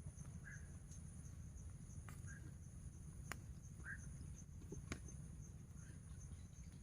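Faint steady chorus of crickets or other insects. A short call repeats about every second and a half over it, with a few sharp clicks between.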